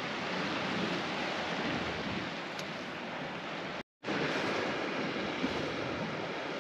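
Steady wash of the sea below a cliff mixed with wind on the microphone, cut off for a moment about four seconds in.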